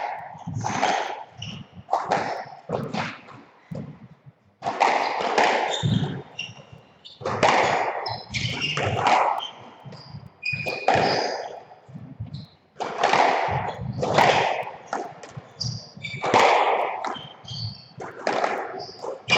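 A squash rally: the ball struck by rackets and smacking off the court walls about once a second, each hit echoing in the court, with short squeaks of shoes on the wooden floor in between.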